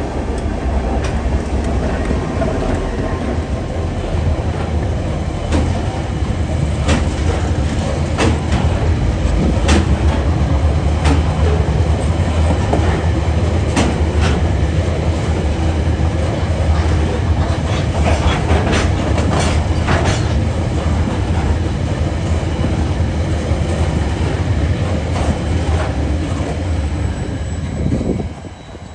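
Coal train's wagons rolling past at close range: a steady low rumble with the clickety-clack of wheels striking rail joints, in bunches. The sound drops away suddenly near the end.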